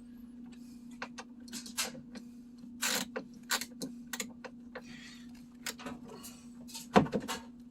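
Irregular metallic clicks and clanks of hand tools working on bolts underneath a washing machine, with one loud knock about seven seconds in, over a steady low hum.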